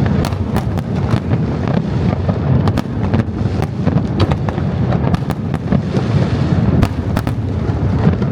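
Fireworks display: a dense barrage of booming bursts over a continuous low rumble, with many sharp crackles and pops layered throughout.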